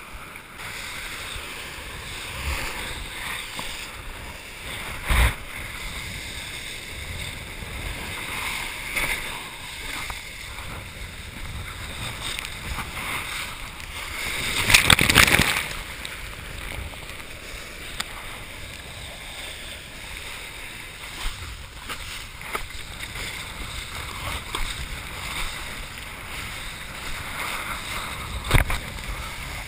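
Kiteboard skimming across the water, a steady rush of water and spray mixed with wind buffeting a chest-mounted action-camera microphone. A louder surge of rushing water about halfway through, and a sharp knock about five seconds in and another near the end.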